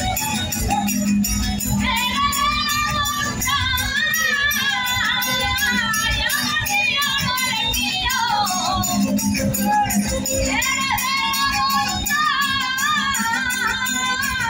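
Verdiales folk music from Málaga: a singing voice comes in about two seconds in over a steady band accompaniment with tambourine jingles.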